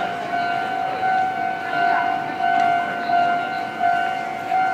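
Railway level-crossing warning bell ringing in a steady repeating pattern, about one and a half rings a second.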